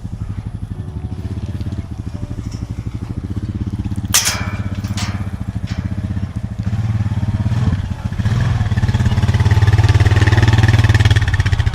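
Four-wheeler (ATV) engine running steadily, getting louder about two-thirds of the way through. There is a sharp knock about four seconds in.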